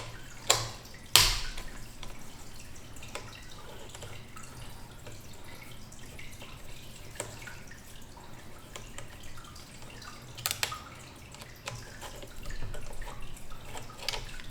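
Scattered light clicks and taps of a tool and small metal bike parts being handled while an old component is unbolted and removed, with one sharp click about a second in and another around ten seconds in.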